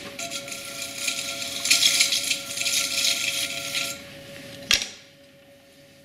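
Electric potter's wheel running with a steady motor whine while hands rub and scrape wet clay on the spinning wheel head. The scraping stops about four seconds in, then one sharp click, and the wheel's whine carries on faintly.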